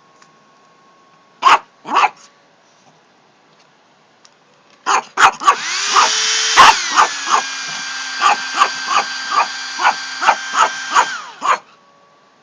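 Yorkshire terrier barking sharply, twice, then again and again, about three barks a second, at a hair dryer that starts up about five seconds in. The dryer runs with a steady whirring hiss and shifts pitch once, and the barking stops when the dryer cuts off near the end.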